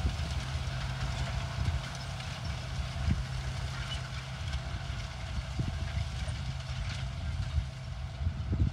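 John Deere tractor engine running steadily as it pulls a planter away across the field, a low, even hum with a few short low thumps.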